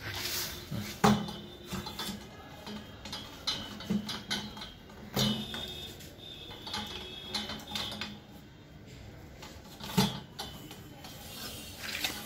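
Metal clinks and knocks from handling a stainless-steel hermetic sampler and turning its top handle: scattered sharp strikes, the loudest about a second in and again at about ten seconds.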